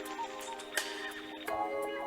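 Drum and bass track playing in a DJ mix: layered melodic synth lines with a few sharp percussive hits and hardly any bass.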